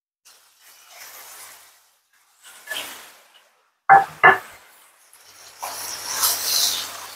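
Pieces of carp frying in hot oil in a frying pan, a faint sizzle that swells into a loud sizzle near the end as the fish is turned with tongs. About four seconds in, two sharp metal clanks, a lid set on a cooking pot.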